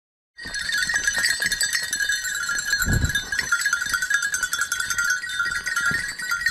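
Bells on a pack of boar-hunting hounds jangling continuously and unevenly as the dogs move about, a dense metallic ringing, with a dull bump about three seconds in.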